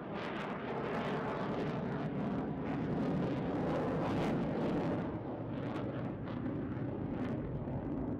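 RAAF F-35A Lightning II fighter's single afterburning turbofan, a continuous crackling jet roar as the aircraft manoeuvres overhead. It is loudest about halfway through and turns duller and less crackly in the last few seconds.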